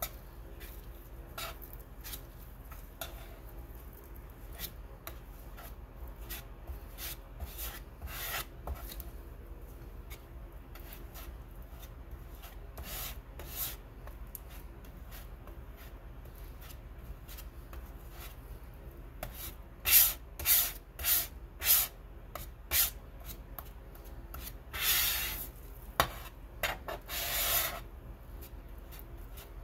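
Palette knife scraping and spreading thick, freshly made oil paint across the paint-making plate. Scattered short scrapes come first, then a run of about five quicker, louder strokes about two-thirds of the way in, and a couple of longer scrapes near the end.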